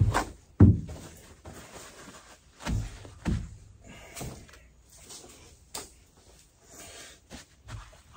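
Paper towel pulled off its roll and wiped over a wooden cutting board, with paper rustling and scraping and a few dull thumps on the bench: two near the start, the second the loudest, and two more about three seconds in.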